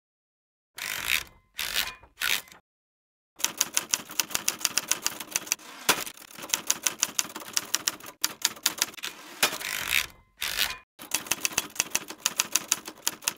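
Typewriter keys clacking in quick runs of several strokes a second, with a few short rasping sweeps between the runs, as text is typed out.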